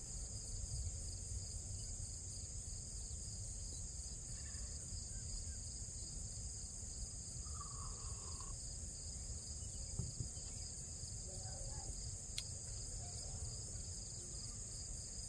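Steady high-pitched drone of a summer insect chorus, over a faint low rumble.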